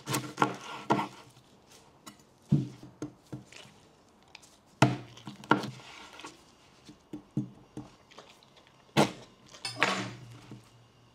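Knife cutting through a fresh pineapple on a wooden cutting board: short crunching cuts through the rind and flesh, and sharp knocks of the blade against the board, the loudest about five seconds in and again about nine seconds in.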